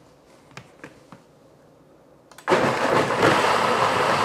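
A few light clicks as the blender lid is pressed on, then about two and a half seconds in a countertop blender starts suddenly and runs loud, chopping tomatillos, serrano peppers and cilantro into green salsa.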